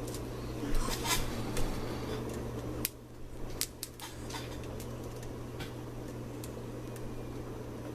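Hands working the electrical wires into a garbage disposal: scattered small clicks and rubbing of wire and metal parts, busiest in the first couple of seconds, over a steady low hum.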